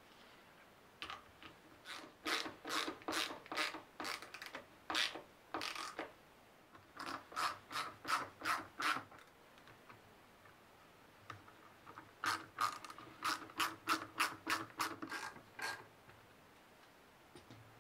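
Wood screws being driven by hand with a screwdriver into wooden blocks: three runs of short clicks, about two to three a second, each run lasting a few seconds.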